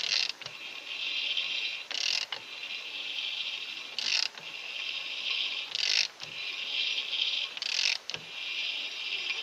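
Front brake disc and hub of a VAZ 2109 turned slowly by hand during a runout check: a short mechanical rasp about every two seconds over a steady high hiss.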